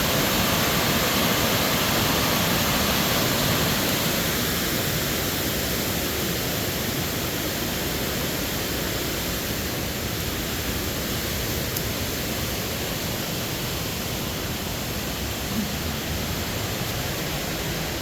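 Waterfall on the Falling Water River rushing as a steady, even noise, easing slightly after about four seconds.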